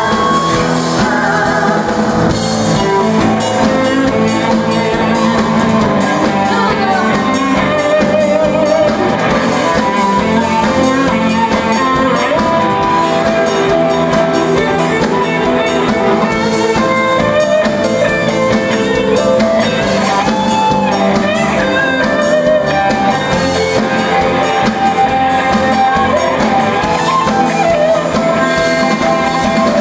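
A live band playing a pop song, with lead singing over drum kit and guitar.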